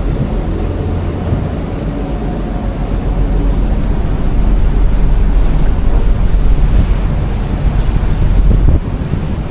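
Strong wind buffeting the microphone, a heavy gusting rumble over a steady rush of sea and ship noise; the buffeting drops off a little near the end.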